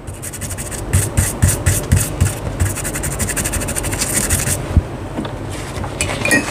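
Rapid scrubbing strokes over the solder pads of a mobile eMMC/UFS memory chip as it is cleaned after its pads have been levelled with the soldering iron. The scrubbing is dense at first and eases off after about four and a half seconds.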